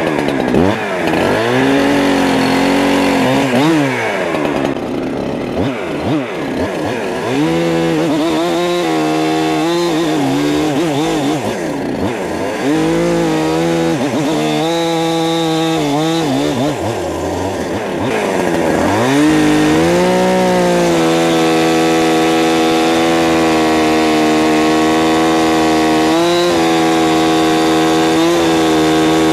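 Holzfforma G372XP 71cc two-stroke chainsaw running hard, its engine pitch swinging up and down as it is revved and loaded in cuts, then holding high and steady through the last ten seconds with a few brief dips.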